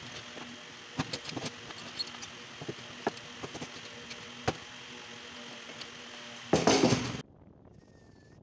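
Scattered light clicks and knocks of a 90-degree corner clamp being handled and fitted onto melamine drawer boards, over a steady hiss. Near the end comes a short loud noisy burst, then the sound cuts abruptly to a much quieter bed.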